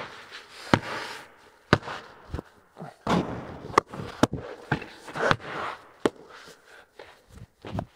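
Basketballs bouncing on a bare concrete floor, sharp knocks coming irregularly about a second apart, each with a short echo off the hard walls of a large empty building.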